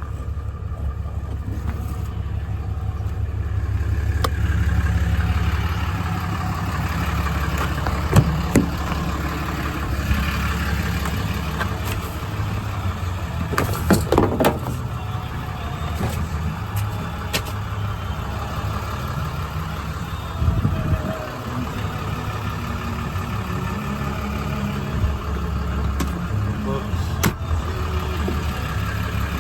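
Ram 5500's 6.7 Cummins diesel engine idling steadily, with a few short knocks and clatters over it.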